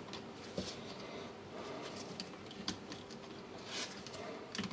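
Faint scattered clicks and rustling of gloved hands working a power cord free of a rotary hammer's plastic handle.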